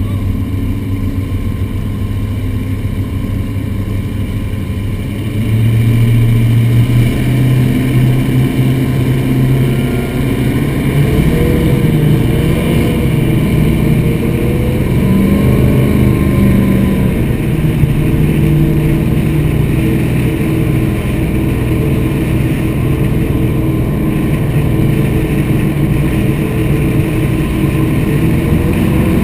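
Mercury engines of a 43-foot offshore catamaran powerboat running at low speed, a steady drone. About five seconds in it gets louder and deeper as throttle is added, and the pitch wavers slightly a few seconds later.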